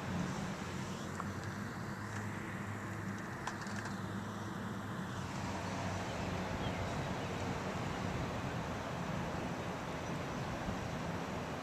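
Steady rushing noise of strong storm wind, with a low steady hum underneath and a few faint clicks.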